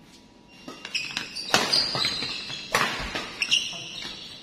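Badminton rally: sharp racket strikes on the shuttlecock, mixed with squeaks of court shoes on the floor and footfalls, starting about a second in.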